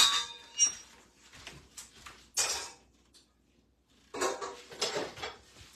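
Metal kitchenware clinking and clattering as stand-mixer parts are handled and set down. A sharp clink with a short ring comes at the start, a louder clatter about two and a half seconds in, and a run of knocks and rattles from about four seconds.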